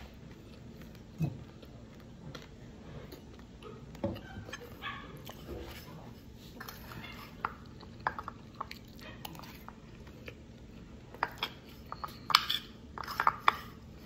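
Metal spoon clinking and scraping against a plate as spaghetti with cassava flour is scooped up, with close-up chewing between. The clicks grow denser and sharper near the end.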